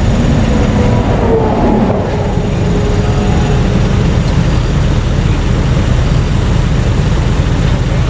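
Steady loud low rumble of interstate traffic going past, with no single event standing out.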